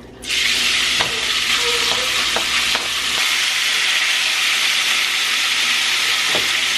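Cubed raw chicken breast dropped into a hot oiled skillet, setting off a loud sizzle that starts abruptly a moment in and holds steady. A few light clicks of a spatula stirring the chicken against the pan.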